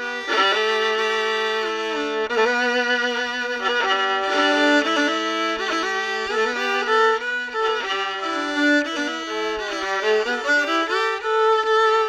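Violin music: a slow bowed melody of held notes with vibrato, often two notes sounding together.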